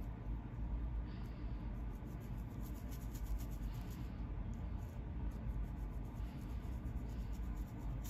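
Black fine-tooth comb scratching along a flaky scalp to lift dandruff: a continuous run of small, fine scratchy ticks over a low steady rumble.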